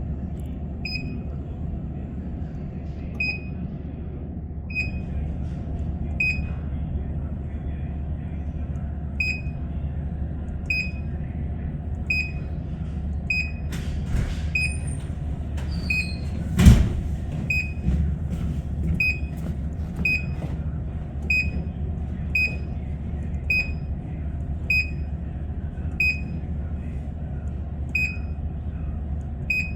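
A short high electronic beep repeating evenly about every one and a half seconds over a steady low hum, with one loud sharp click about two-thirds of the way through.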